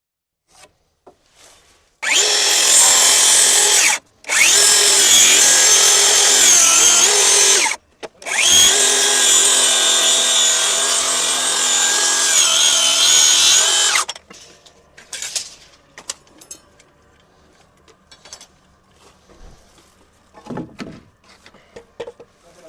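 A power tool running hard in three bursts of about two, three and a half and six seconds, its pitch sagging and recovering as it bears into the work, while enlarging a door's rough opening. After it stops, a few light knocks and clatter.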